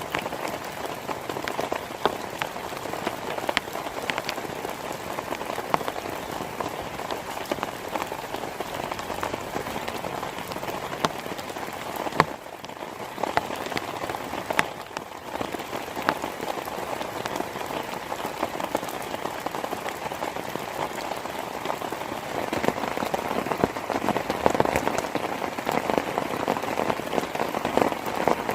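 Heavy rain falling steadily, a dense hiss full of separate drop hits. It eases briefly about halfway through and grows louder near the end.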